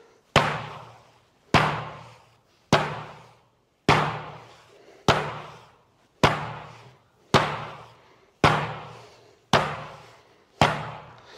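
Edge-of-hand iron palm strikes dropped onto a bean-filled canvas bag: ten heavy slaps at an even pace, a little under one a second, each fading out in a short echo.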